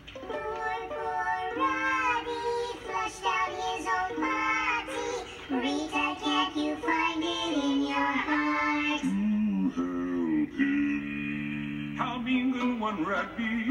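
Cartoon characters singing a comic love song over backing music, including a slug chorus with high, chipmunk-like voices and several long held notes. It is heard through a television speaker.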